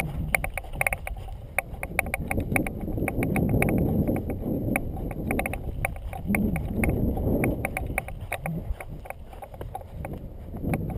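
Mountain bike rolling down rough rocky ground, rattling with rapid irregular clicks and knocks over a low rumble of tyres and air that swells and fades.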